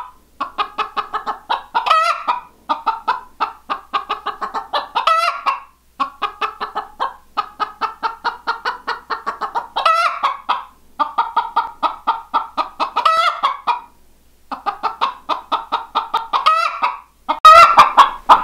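A broody Icelandic hen clucking rapidly and steadily, several clucks a second, with a louder, drawn-out wavering call every few seconds: agitated defensive vocalising while she settles back on her eggs and sees a threat to them. A brief loud noise comes near the end.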